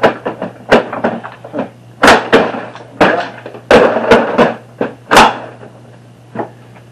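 Hard plastic Milwaukee PACKOUT organizer cases knocking and clicking as they are set down on a stack of PACKOUT boxes, a string of sharp clunks about a dozen in all.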